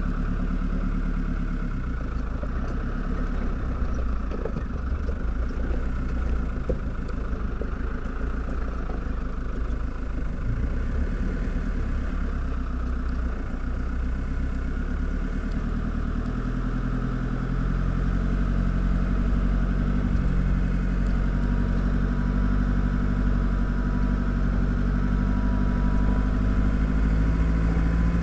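Open safari vehicle's engine running steadily as it drives slowly through tall grass, the low engine note growing somewhat stronger about two-thirds of the way through.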